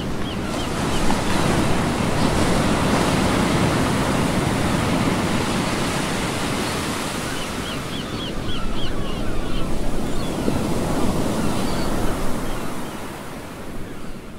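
Ocean waves and surf washing in a steady loud rush, with short runs of small high chirps at the start and again about eight seconds in. The sound fades out near the end.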